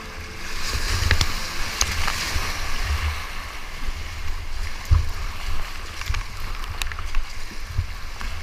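Rushing floodwater of a big-volume whitewater rapid heard from a kayak, with paddle strokes splashing. Dull bumps on the microphone and a few sharp ticks of water striking the camera come through the steady rush.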